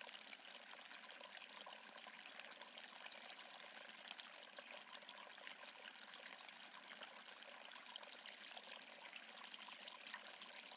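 Faint, steady trickling water.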